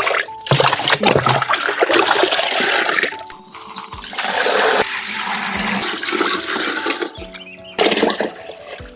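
Water rushing and splashing in long pours, breaking off about three seconds in and again near the end, over background music.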